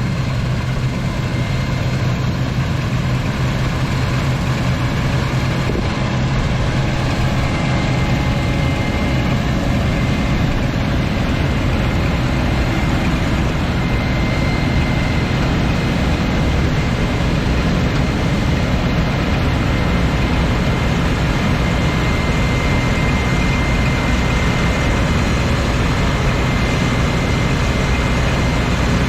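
Claas Lexion 420 combine harvester running steadily: a dense, even machine noise with a steady low hum and a faint high whine that hold constant throughout.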